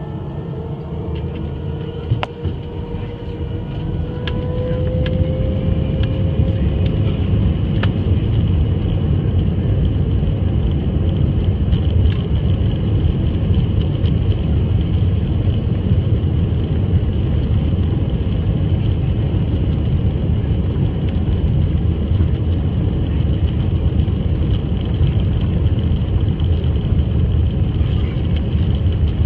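Airbus A319 jet engines heard from inside the cabin, spooling up to takeoff thrust: a whine rises in pitch over the first several seconds as the sound grows louder. It then settles into the steady heavy rumble and rush of the takeoff roll, with a sharp knock about two seconds in.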